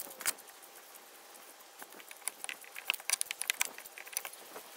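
Light metallic clicks and rattles of a steel bar clamp being slid into place and tightened onto a glued plywood seat repair: one click near the start, then a quick run of clicks through the second half.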